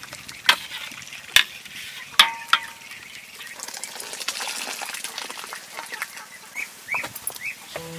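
Metal ladle knocking against a steel wok of boiling water, three sharp clanks, then water splashing and pouring off the ladle as a softshell turtle is scooped out. A few short rising chirps near the end.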